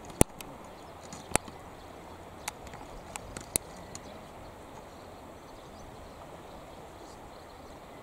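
Steady flowing-river noise with a scattered run of sharp clicks and clacks, most of them in the first few seconds.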